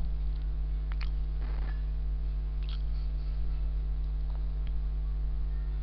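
Steady low electrical mains hum on the recording, with a few faint clicks scattered through it.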